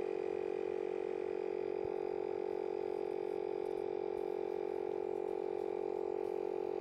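Appfull electric paddleboard pump running with a steady hum, in the last seconds of inflating an inflatable paddleboard to 16 PSI.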